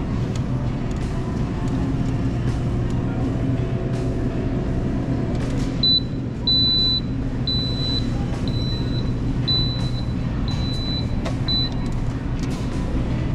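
Shopping cart rolling across a smooth store floor, a steady low rumble carried up through the cart. From about halfway in, a high electronic beep repeats about once a second, seven times.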